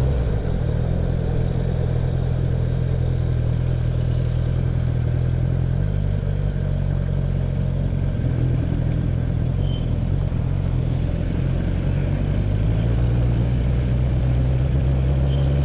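Honda CB650F's inline-four engine running steadily at low road speed while being ridden, its note shifting about six seconds in.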